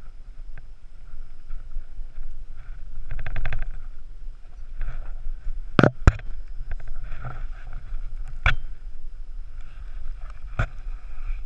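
Climber's movement on rock, heard through a body-worn camera: clothing rubbing on the microphone and boots scuffing stone, with a brief fast rattle about three seconds in and several sharp clicks and knocks, two close together about halfway through, likely gear and boots striking rock.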